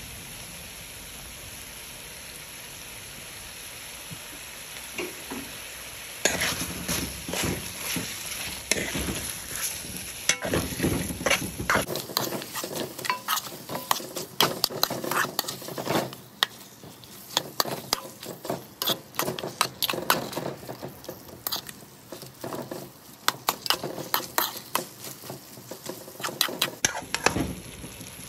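Chicken pieces in a pot sizzling with a steady hiss. About six seconds in, a spatula starts stirring and scraping against the pot, many quick scrapes and knocks over the sizzle, as barbecue sauce is mixed through the chicken.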